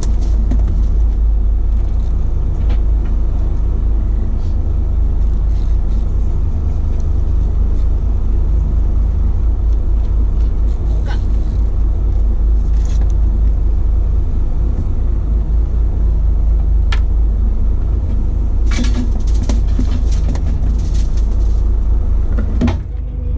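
Boat engine running steadily at idle, a constant low rumble with a few sharp clicks over it.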